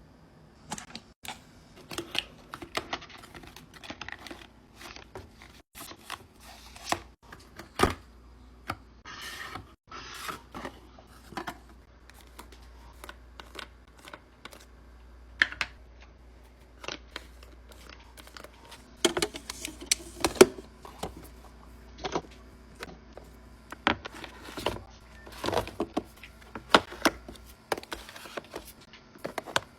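Small items being handled and set down during a mini-fridge restock: an irregular run of light clicks, taps and knocks of containers and packaging, busier in two stretches in the second half. A faint low hum lies underneath for most of the time.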